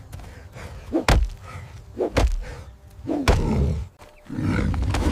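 Three heavy thuds about a second apart, then a dense low rumble from about four seconds in.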